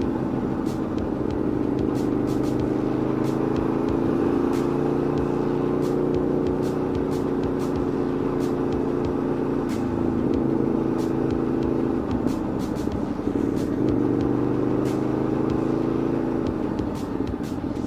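Aprilia Tuono V4 motorcycle's V4 engine running steadily at low revs, with a slight rise and then fall in pitch near the end.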